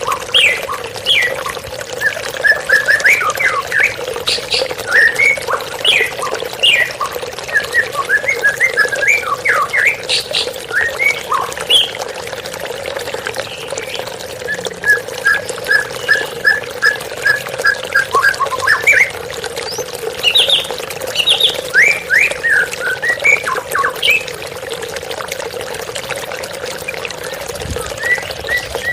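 Songbirds singing a varied string of quick whistled and sliding notes, with a fast run of evenly repeated notes, about three a second, in the middle. Steady rushing water from a waterfall runs underneath.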